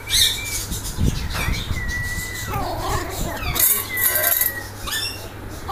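Puppies playing rough, with scuffling and short puppy whines and yelps.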